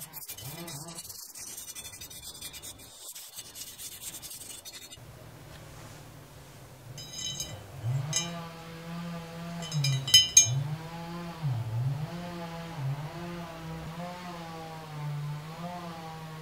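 A bristle paintbrush rubbing oil over a cast iron pot lid, with a hissy scrubbing sound. About halfway through, the lid is wiped by hand with a few sharp clicks and knocks. A low, wavering hum runs under the second half.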